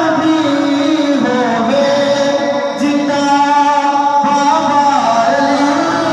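Male voice singing a devotional Punjabi song through microphones, holding long, wavering notes that slide from one pitch to the next.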